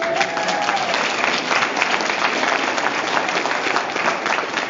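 Audience applauding: many hands clapping at once, with one voice calling out briefly at the start.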